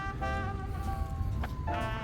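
Background instrumental music with held notes, one sliding slowly downward.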